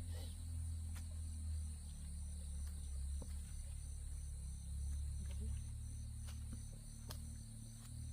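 Crickets chirping in a steady, evenly pulsed high trill over a loud, steady low rumble, with a few faint clicks.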